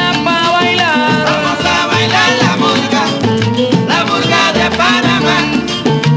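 Salsa music played from a vinyl record, with a steady Latin beat, bending melodic lines from voices or horns, and light percussion such as maracas.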